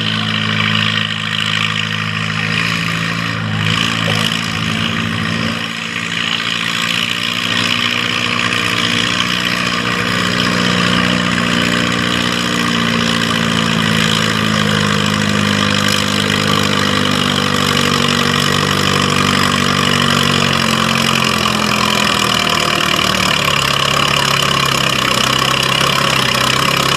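Diesel engine of a farm-class pulling tractor running hard, with a loud steady hiss over the engine note. The engine note drifts and sags lower late on, and the sound falls away at the end.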